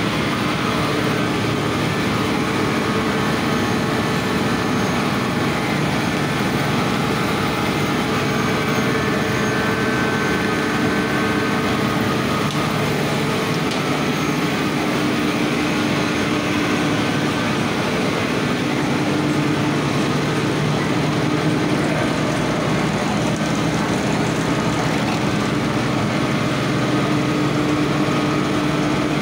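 Chinese-made cotton carding machine running steadily, its motor, belt and chain drives and rollers making a continuous mechanical noise with a constant hum.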